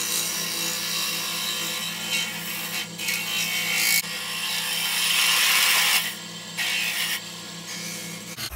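Wood lathe running with a steady hum while a hand-held turning tool takes final clean cuts on a spinning chokecherry goblet. The hiss of the tool shaving the wood comes and goes with each pass and is loudest about four to six seconds in.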